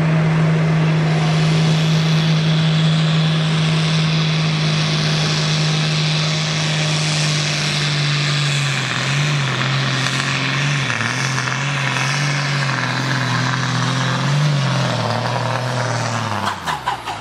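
Highly tuned IHC 955 pulling tractor, rated at about 1000 competition horsepower, running flat out as it pulls the sled, with a loud, steady engine note. About seven to eight seconds in, the revs drop and waver as the load builds, and they fall away near the end.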